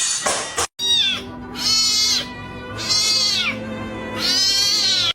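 A cat meowing four times, each meow rising and then falling in pitch, over a steady background music bed.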